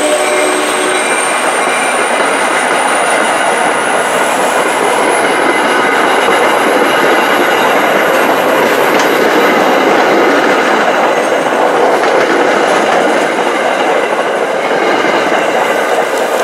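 MBTA commuter rail coaches passing close by at speed: a steady, loud rush of wheel and rail noise, with a thin high whine slowly rising in pitch. A train horn chord dies away about a second in.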